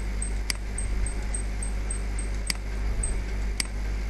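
Three sharp computer-mouse clicks, about half a second, two and a half and three and a half seconds in, over a steady low hum.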